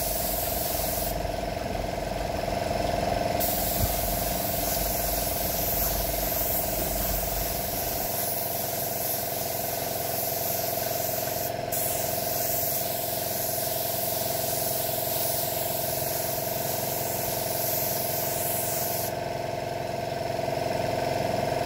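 Gravity-feed paint spray gun hissing as it lays a second coat of silver paint mixed with clear, its spray fan opened wide. The hiss starts a few seconds in, breaks off for an instant near the middle, and stops a couple of seconds before the end, over a steady hum.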